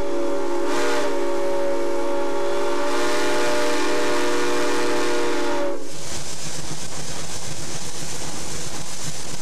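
A steam locomotive's whistle blowing a steady chord of several notes for about six seconds, then cutting off sharply. After it, the steady rumble of the train rolling along the track.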